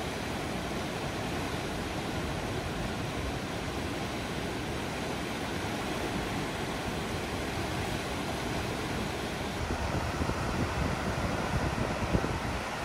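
Mountain river rushing steadily through rapids in a narrow rock gorge. About ten seconds in the sound changes and turns uneven and gusty.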